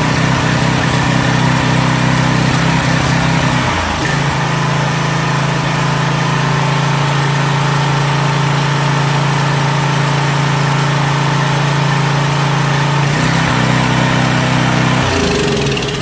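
Briggs & Stratton 175cc OHV engine on a Craftsman pressure washer running fast and steady with the pump unloaded, which the owner says sends it to full throttle and makes it surge. Its speed dips briefly about four seconds in, and near the end it winds down and stops.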